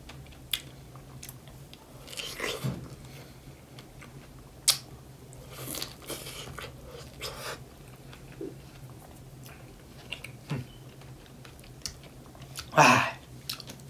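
Mouth sounds of people biting into and chewing large fresh strawberries: scattered wet smacks and short clicks, with a short vocal "ah" near the end.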